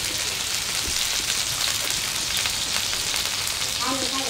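Food sizzling in a pan over a wood fire: a steady frying hiss with fine crackles throughout.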